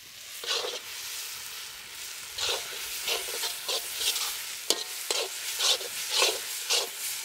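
A spoon stirring and scraping a spiced masala filling as it sizzles in a hot pan, just after chopped coriander leaves go in. A steady sizzle runs under repeated scraping strokes, about two a second after the first couple of seconds.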